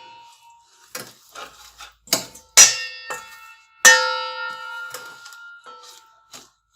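A metal spoon knocking against a metal pot: a few sharp clangs that ring on, the loudest two about two and a half and four seconds in, with lighter knocks before them.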